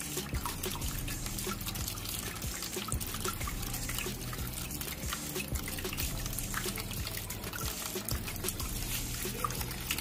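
Water trickling and dripping steadily, with many small scattered drips and splashes over a low steady hum.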